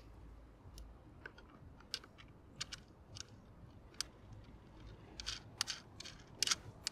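Scattered light clicks and taps of plastic and metal as the Temo 450 electric outboard's mounting is seated on the pin rowlock and its knob is turned by hand, growing busier and louder in the last two seconds.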